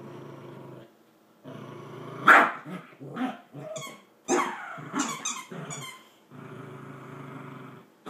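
Dog growling in long, low rumbles, broken by a loud sharp bark a little over two seconds in and several more short barks between about four and five and a half seconds.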